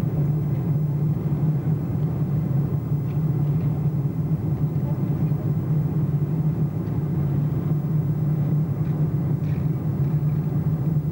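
Steady low drone inside the cabin of a Boeing 747-200 in flight: engine and airflow noise with a strong low hum, unchanging throughout.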